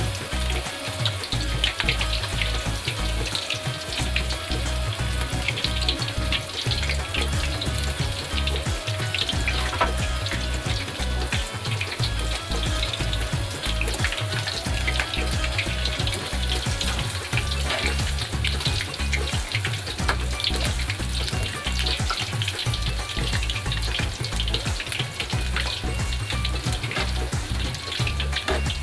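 Soya chunk pakodas deep-frying in hot refined oil in a kadhai, a steady sizzle with constant small crackles. Background music with a steady bass beat plays over it.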